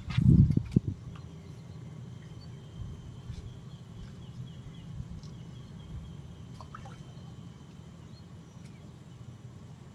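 Wind buffeting the microphone in loud low gusts for about the first second, then a steady low rumble of wind. Faint high chirps sound now and then.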